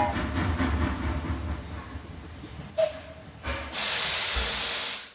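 Cartoon sound effects. A rumbling noise fades over about three seconds, a short blip comes midway, and then a steady hiss runs and cuts off abruptly.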